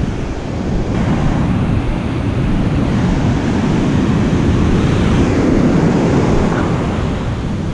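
Ocean surf breaking and washing up a sandy beach, with wind rumbling on the microphone.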